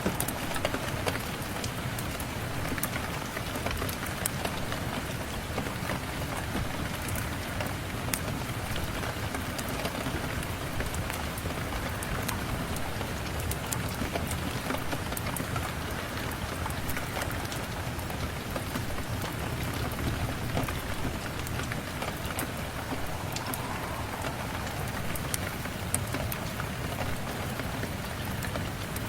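Steady rain with frequent small, sharp crackles of a fireplace mixed in.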